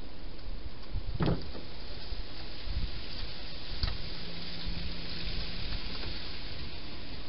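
Hedgehog feeding inside a clear plastic feeding box: a few soft knocks and clicks, the clearest about a second in and others near three and four seconds, over a steady hiss.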